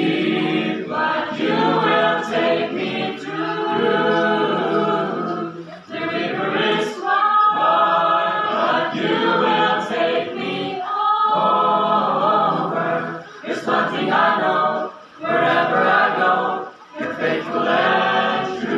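A mixed choir of young men and women singing a cappella, in sung phrases with brief pauses between them.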